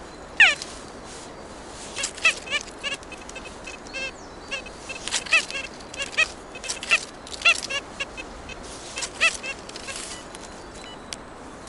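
Birds calling in woodland: a single call falling steeply in pitch, then a run of short, harsh repeated calls over a steady background hiss of wind and distant road noise.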